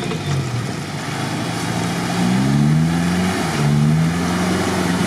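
Toyota Land Cruiser 70-series 4x4 engine revving as the truck drives into deep water, the pitch climbing twice, over water splashing around the wheels.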